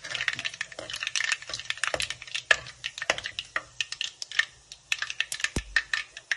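Mustard seeds, cumin and curry leaves frying in hot oil in a steel kadai: a rapid, irregular crackle of spluttering seeds, with a steel ladle stirring through them. One heavier knock comes near the end.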